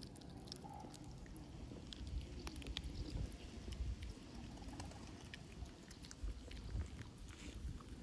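A dog crunching dry kibble: irregular crisp crunches and clicks as it chews, with a few low muffled thumps now and then.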